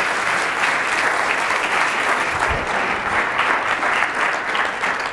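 Audience applauding steadily with many hands clapping, welcoming a speaker to the stage.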